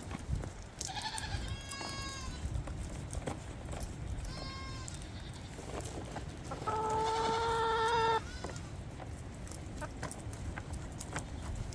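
Goats bleating: a few short calls, then a longer, louder bleat about seven seconds in, over a low wind rumble on the microphone.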